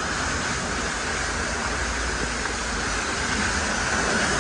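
Pressure-washer jet spraying the underside of a Jeep, water hitting the rear axle and differential housing with a steady hiss.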